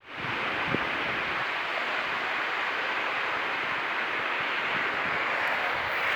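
Sea surf washing steadily onto the shore, a constant hiss-like rush of waves.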